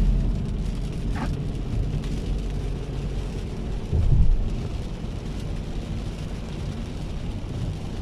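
Steady low rumble of outdoor ambience in heavy rain, like traffic on wet roads, swelling briefly about four seconds in as if a vehicle passes.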